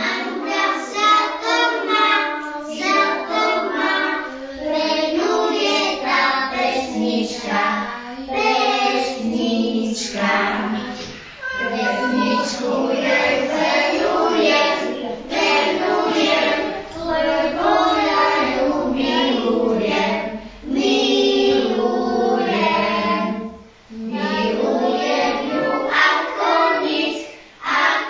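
A group of young kindergarten children singing a song together in unison. Their sung lines are broken by a few short pauses for breath.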